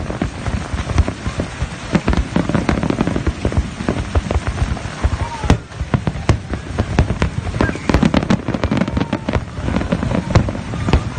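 Fireworks going off in quick succession: a dense run of bangs and crackles, many overlapping, over a low rumble.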